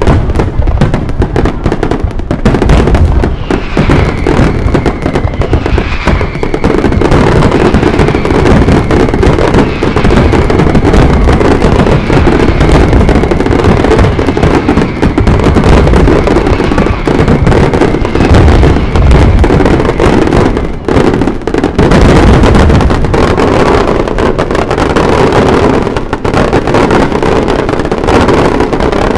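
Aerial fireworks display in a dense barrage: rapid, continuous bangs and crackling, with a long whistle slowly falling in pitch through the first half.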